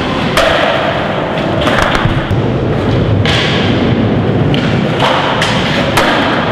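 Skateboard on a concrete floor: wheels rolling, with several sharp board impacts. A grind on a metal handrail begins about half a second in with a ringing tone for about a second.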